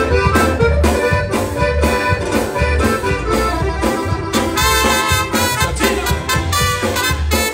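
Live band playing an upbeat dance tune, with accordion, electric bass, guitars and drums over a steady, strongly pulsing bass beat.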